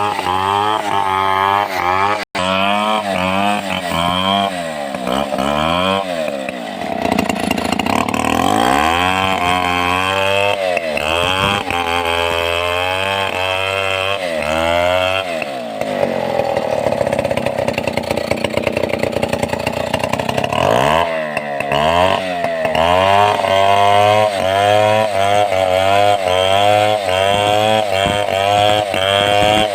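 Stihl 070 two-stroke chainsaw running at high revs under load, ripping lengthwise through timber. The engine pitch repeatedly sags and climbs back as the chain bites into the wood and eases off.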